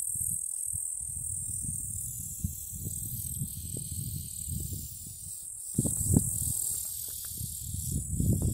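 Meadow insects chirring steadily in a high-pitched continuous band, over a low rumble, with a few knocks about six seconds in.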